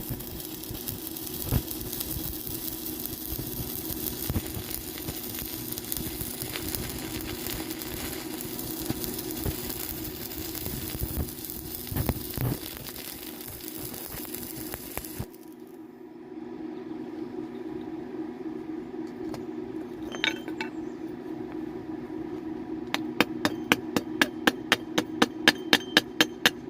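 Welding arc crackling and sizzling steadily over a low hum, cutting off suddenly about halfway through. Near the end, a quick, even run of sharp taps begins, about two to three a second.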